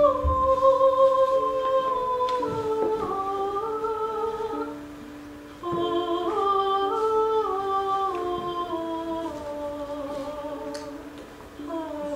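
A woman singing a wordless keening lament, unaccompanied, with a slow melody of held notes. It comes in two drawn-out phrases that drift downward, with a short break about five seconds in, over a steady low held note. A new phrase begins near the end.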